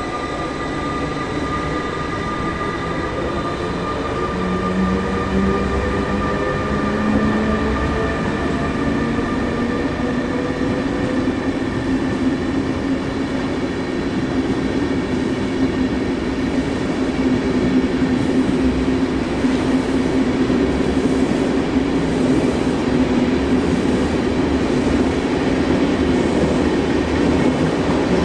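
SBB Re 460 electric locomotive pulling away with a train of InterCity coaches. Its traction motors whine in several tones that shift in pitch over the first seconds, then settle into a steady hum under the running noise of the coaches rolling past on the rails.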